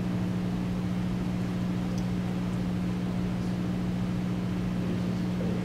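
Steady low electrical or mechanical hum with a constant hiss: room background noise, unchanging throughout.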